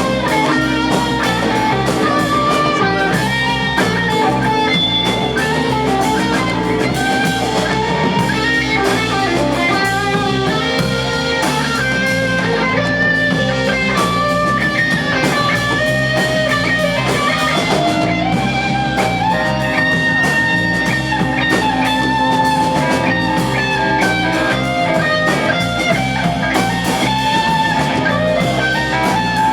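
Live band playing an instrumental passage led by electric guitar over drums, in a blues-rock style.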